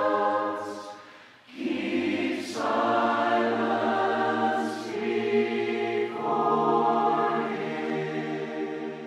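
Choir singing a hymn unaccompanied in sustained chords, with a short break between phrases about a second and a half in, fading out near the end.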